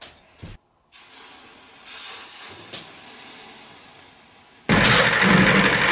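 An aerosol can hissing as it sprays onto a metal plate. About a second before the end it cuts off and a milling machine comes in, loud and steady, its end mill cutting the plate.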